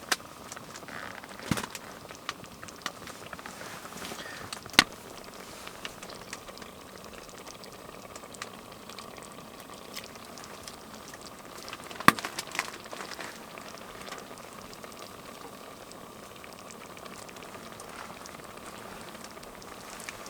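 Steady bubbling hiss of food boiling in a pot on a wood stove, with a few sharp clicks or knocks scattered through it, the loudest about five and twelve seconds in.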